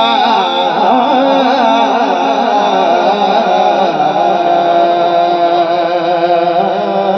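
Male naat reciter's voice singing a long, wavering melismatic line without clear words, settling into a steadier held note about four seconds in.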